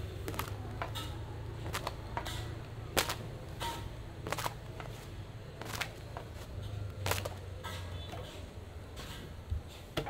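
Roti canai being worked on a stall's cooking surface: irregular sharp clacks and knocks, roughly one a second, the loudest about three seconds in, over a steady low hum.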